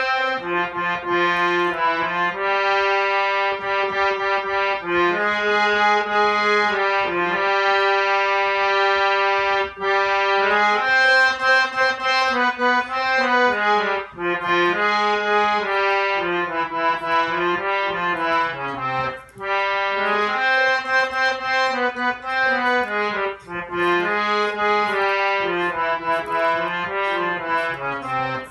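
Harmonium played solo: a melody of held reed notes over a lower moving line, with short breaks between phrases.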